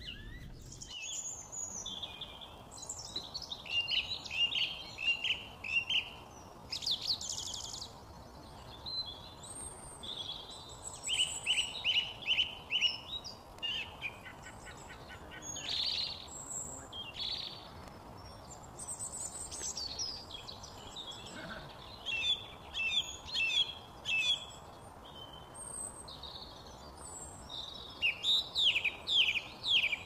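Song thrush singing from a treetop: loud phrases of quickly repeated, sharp notes, each phrase a second or two long with short pauses between, over a faint steady background hiss.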